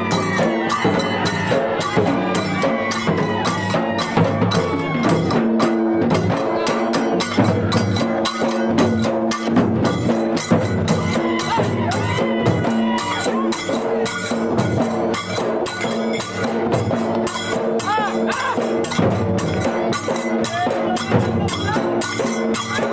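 Traditional Indian processional band music for dancing: a fast, steady drumbeat under long held melody notes.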